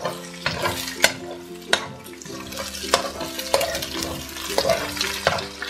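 A metal spoon scrapes and knocks against a frying pan as it chops up eggs frying in hot oil, over a steady sizzle. The spoon knocks come at uneven intervals, about once or twice a second.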